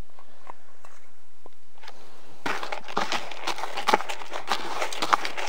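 Carp groundbait pellets of mixed sizes being stirred in their liquid additive. A dense, irregular rattling and crunching starts about halfway through, after a few faint clicks.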